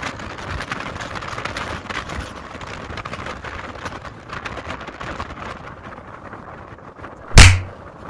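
Gale-force wind gusting and buffeting the microphone, then a single loud, sudden bang about seven seconds in.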